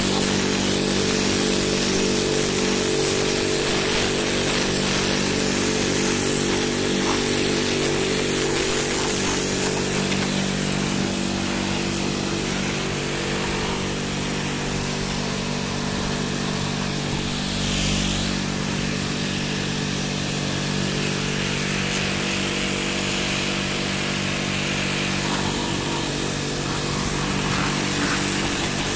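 Pressure washer running steadily: a constant motor hum under the hiss of the water jet hitting clay roof tiles.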